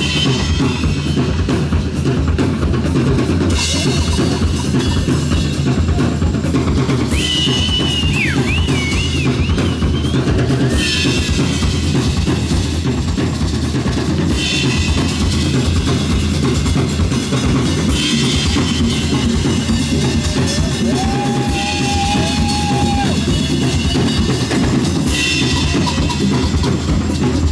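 Live rock band playing an instrumental passage with drum kit, electric guitars, bass, congas and tambourine. A high wavering note cuts through the mix about a third of the way in.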